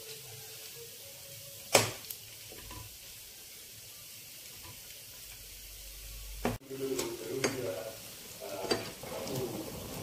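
Rice fritters (punugulu) deep-frying in hot oil in a pan, a steady sizzle, with a sharp knock of a utensil against the pan about two seconds in. From about six and a half seconds the sizzle turns louder and bubblier, with a few lighter taps.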